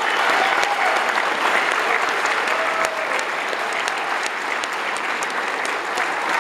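Audience applauding steadily, a dense patter of many hand claps, with a few voices faintly audible in the crowd.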